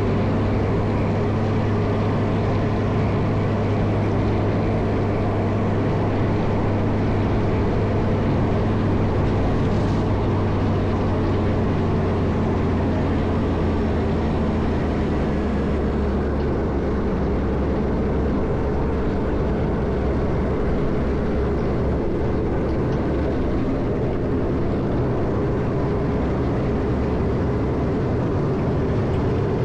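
Caterpillar 140M motor grader's diesel engine running steadily while plowing snow. Its engine note drops slightly about halfway through.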